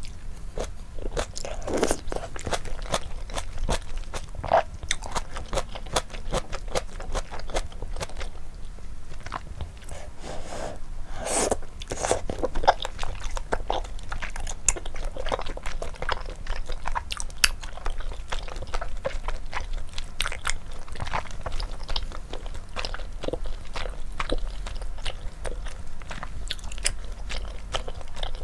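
Close-miked eating of malatang with flat wide glass noodles: continual chewing and biting with many sharp wet mouth clicks.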